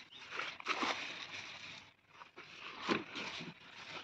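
Soft, irregular chewing and crunching noises from someone eating.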